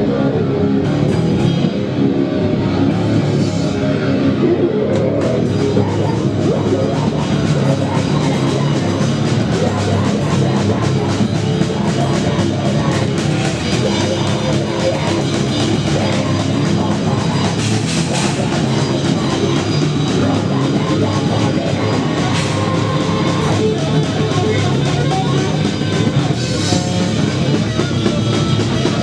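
Live band playing loud, distorted heavy rock, with electric guitar over a drum kit keeping a fast, steady beat.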